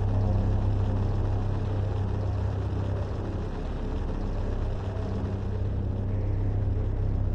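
A low, steady rumbling drone, like the dark ambient sound design of a horror soundtrack, with no change in pitch or rhythm.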